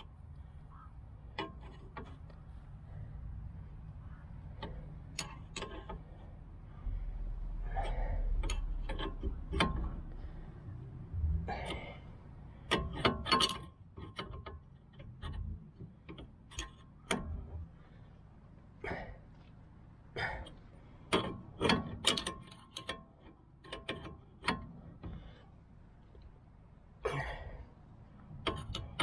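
Combination spanner turning the forcing bolt of a ball joint separator clamped on a tie rod end: irregular metal clicks and clinks as the spanner is worked and repositioned on the bolt, a few of them sharp and loud.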